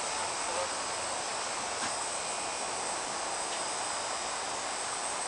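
Steady buzzing hiss of an air-conditioning unit running, with a couple of faint ticks.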